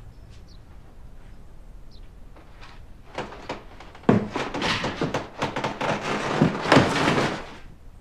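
Rustling and crackling of cardboard and cabbage leaves with several dull thumps, as a box of napa cabbage is shifted and handled, loudest from about four seconds in until it stops shortly before the end.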